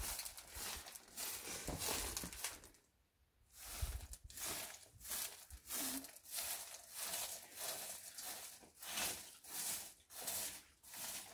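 Short-handled bundle broom of dry stems sweeping a dusty dirt floor and rug in short, repeated scratchy strokes, about one or two a second, with a brief pause about three seconds in.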